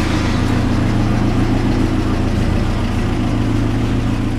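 A motor engine idling close by: a steady low hum at one constant pitch.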